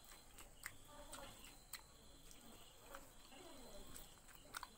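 Near silence with a few faint, short clicks: the soft mouth and finger sounds of someone eating by hand.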